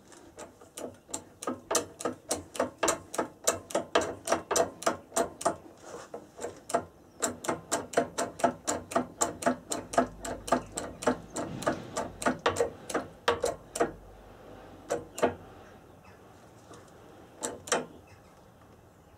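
Rapid series of light metal-on-metal taps or clicks, each with a short ring, about three a second, that thin out to a few single taps near the end.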